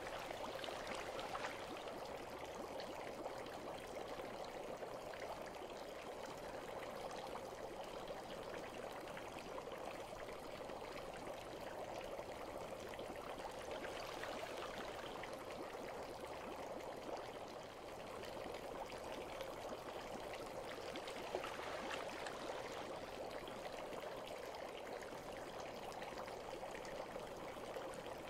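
Running water, a steady gentle pour and trickle that keeps up without a break.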